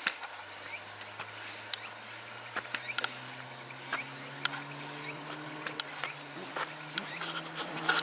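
Outdoor ambience in woodland: a faint steady insect hum, scattered light ticks and clicks, and a low hum that slowly rises in pitch.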